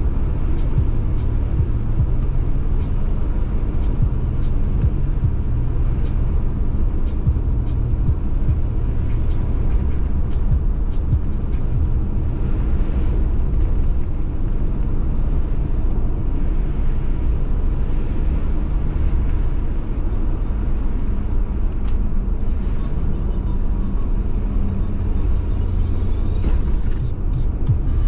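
A car driving along a road: a steady low rumble of engine and tyre noise, with faint clicks here and there.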